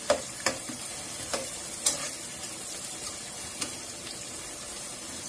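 Sliced onions and green chillies sizzling in hot oil and ghee in a pot as they are stirred with a metal slotted spoon, which clinks against the pan about five times.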